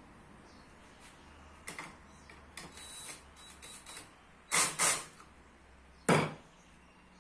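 Workshop handling sounds: wooden pieces knocking into a jig with small clicks, two short loud bursts just past halfway, and a heavy knock about six seconds in as a cordless drill is set down on the wooden workbench.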